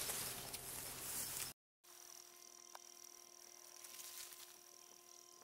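A loud, even hiss cuts off abruptly about one and a half seconds in. After a moment of dead silence comes a faint, steady electrical hum with several fixed high tones.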